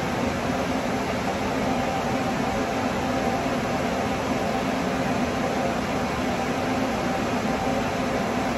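Ventilation fan running steadily: an even whooshing hiss with a low hum and a fainter higher tone underneath.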